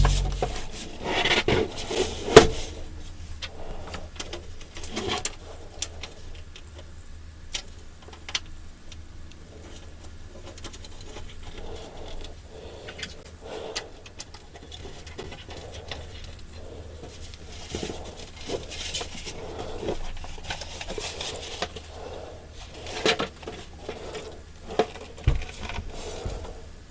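Hands handling computer parts and a PC case: scattered small clicks, taps and brief scrapes, with a sharp click about two and a half seconds in and a dull knock near the end, over a faint steady low hum.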